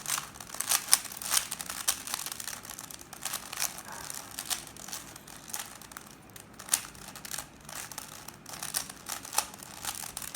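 3x3 Rubik's cube being scrambled by hand: its plastic layers turned in quick, irregular twists, giving a run of clicks and clacks.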